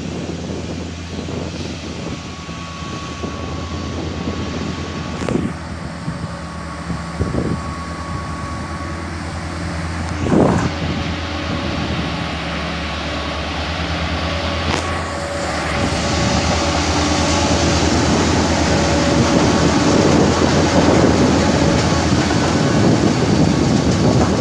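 Plasser & Theurer Unimat Compact track tamping machine's diesel engine running with a steady drone as it rolls along the track, growing louder over the last several seconds as it comes close. A few sharp knocks stand out, the loudest about ten seconds in.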